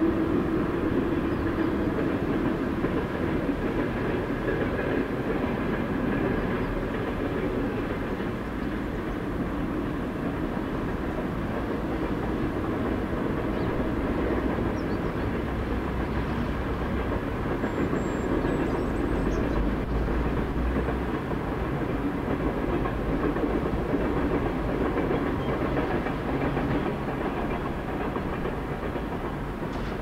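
A steady, continuous rumbling noise with a fine rattling texture, as of heavy running machinery, holding at an even level throughout.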